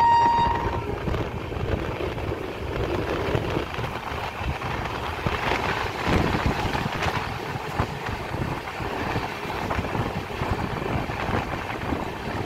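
A train horn holding one steady note cuts off within the first second. It is followed by the continuous rumble and rattle of a moving passenger train heard from on board, with wind noise.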